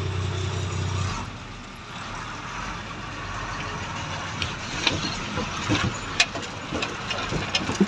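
Truck engine idling, heard from inside the cab: a steady low hum that drops away about a second in, leaving a steady rumble, with scattered light clicks and knocks in the second half.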